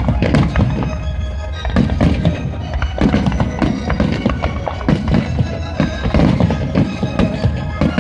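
Music playing, with aerial firework shells bursting and banging repeatedly over it.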